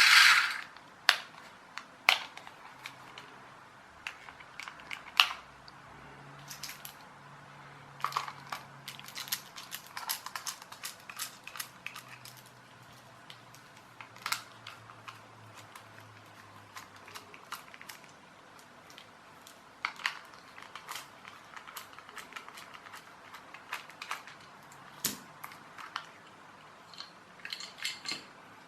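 Irregular small plastic clicks and taps from handling and pressing a toy car's wired remote control with its broken forward/reverse rocker button. A faint low hum runs through the middle stretch.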